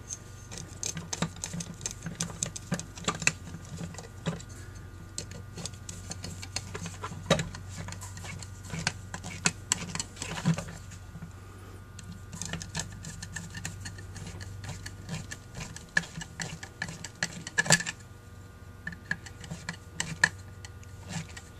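Hand screwdriver turning new screws into the bowl cover of a Holley 1904 one-barrel carburetor: a run of small, irregular metal clicks and scrapes over a low steady hum.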